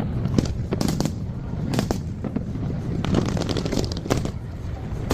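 Fireworks display: a rapid series of aerial-shell bangs over a low rumble, with a dense run of crackling about three seconds in.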